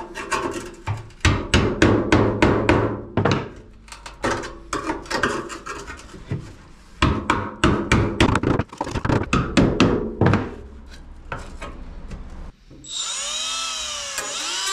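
Hand tools knocking and scraping on a steel fender's rolled lip as it is bent open, in quick irregular runs of knocks. About thirteen seconds in, this gives way suddenly to background music.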